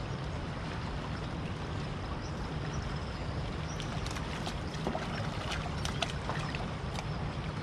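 A hooked fish splashing and thrashing at the river surface, a run of short sharp splashes starting about four seconds in, over a steady low rushing background.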